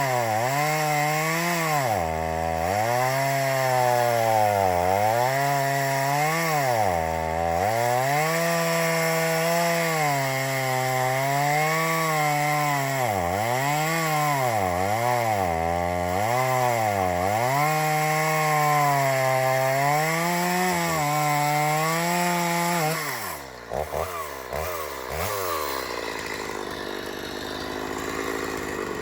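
Two-stroke gas chainsaw cutting a log, its engine pitch repeatedly dipping and rising as the chain bogs and frees in the wood. About 23 seconds in, the engine winds down with a few stutters to a lower, quieter running sound.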